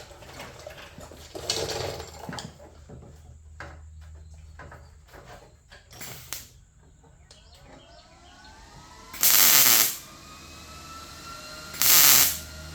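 A welder laying two short tack welds into a steel hood patch panel: two crackling bursts, each well under a second, about two and a half seconds apart near the end, after some light clicking and handling of the metal.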